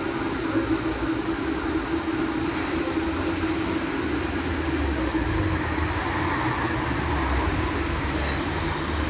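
A vehicle running steadily: an even low rumble with a constant hum.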